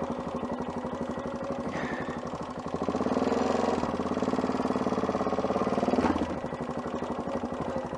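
Adventure motorcycle engine pulling at low speed over rough ground, its firing pulses steady. About three seconds in it gets louder under more throttle, then eases back about six seconds in.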